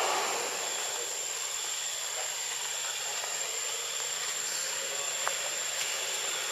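Steady hissing outdoor background noise with a constant high-pitched whine above it, and one faint click about five seconds in.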